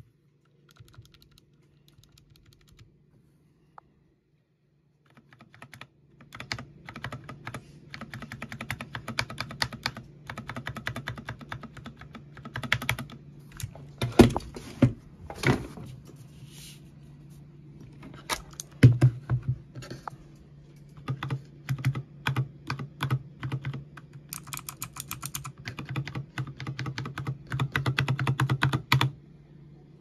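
Mechanical keyboard with clicky blue switches being typed on fast, in dense runs of keystrokes with a few louder single strokes among them, over a steady low hum. The keystrokes start about six seconds in.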